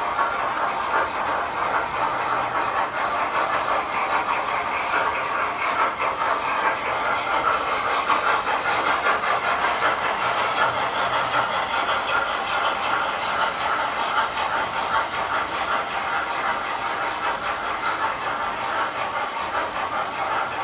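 Several metal model trains running at once: a steady rattling whir of the locomotives and cars rolling over the track, with a faint low hum underneath.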